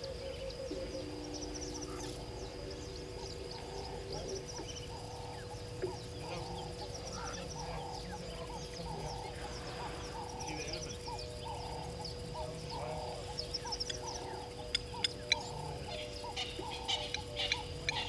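Morning bird chorus in the bush: several birds calling over one another, with short repeated mid-pitched calls throughout over a steady hum, and a run of sharp, shrill calls in the last few seconds.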